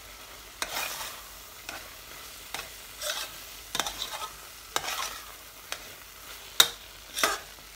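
Spoon stirring and scraping a thick, drying grated-carrot and milk-powder mixture around an aluminium saucepan, a short scrape every half-second to second, with one sharp clink of the spoon against the pan about two-thirds of the way through.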